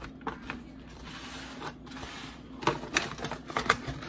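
Irregular light clicks and taps, sparse at first and coming thicker in the second half, over a faint steady hum.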